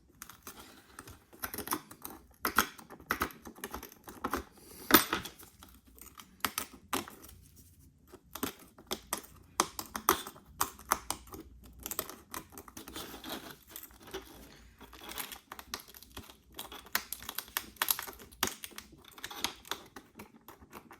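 Irregular, rapid clicks and small cracks of a blade chipping and prying shattered glass off an iPhone SE's back, with bits of glass snapping loose.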